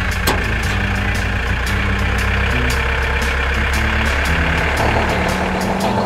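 Tractor engine sound effect running steadily, its pitch shifting a little, with a brief sharp click near the start.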